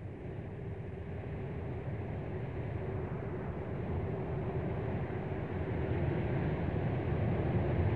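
Low rumbling drone that swells slowly in loudness, with a faint held tone above it: a dark ambient soundtrack drone.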